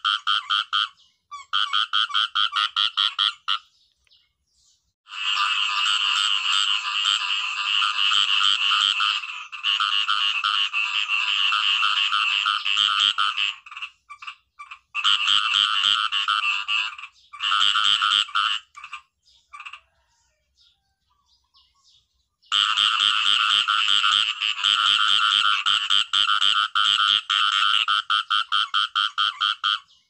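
Khiat i-mo frogs calling: long bouts of rapid, pulsed croaking broken by short pauses, with a few seconds of quiet a little past the middle.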